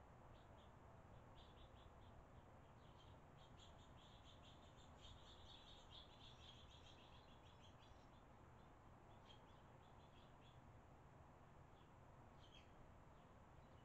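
Barn swallows chirping faintly: quick high chirps in clusters, thickest in the first half and sparse later, over a steady low background hiss.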